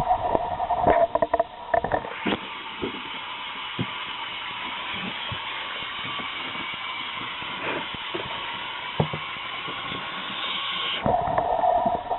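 K'Nex Screamin' Serpent toy roller coaster running: a steady whir from its motor-driven chain lift under the clatter of plastic cars on plastic track. The clatter is loudest in two dense rattling runs, one in the first two seconds and one about eleven seconds in, with scattered clicks between.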